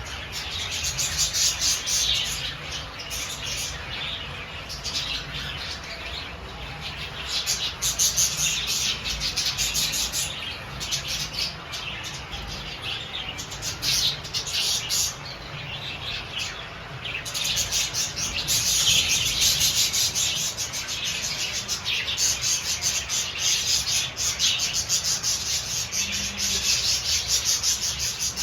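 Many budgerigars chattering and chirping at once, a steady dense chorus of rapid chirps that swells and eases.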